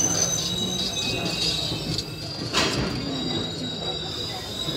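Train rolling slowly along a platform, heard from on board: a steady low rumble with high wheel squeal, and one sharp knock about two and a half seconds in.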